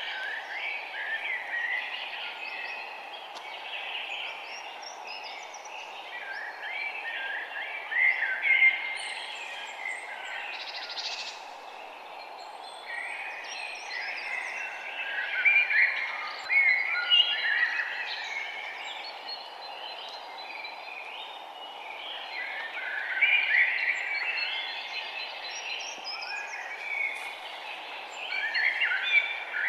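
A chorus of several forest birds chirping and trilling together, swelling into denser bursts every few seconds, over a steady even background hiss.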